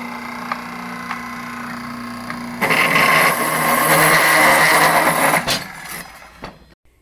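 An electric power tool starts up and runs at a steady hum. About two and a half seconds in, it bears into metal and grows much louder and harsher for about three seconds, then winds down.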